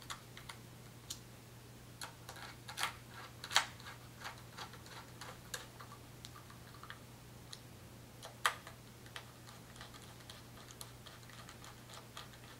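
Hex tool turning cap screws into the metal top plate of a Manfrotto 502 fluid video head: scattered light metal clicks and ticks, with two louder clicks about three and a half and eight and a half seconds in, over a faint steady hum.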